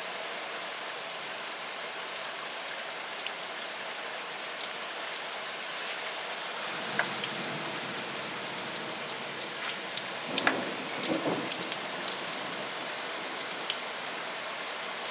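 Heavy rain pouring steadily, with many drops pattering and ticking on hard surfaces.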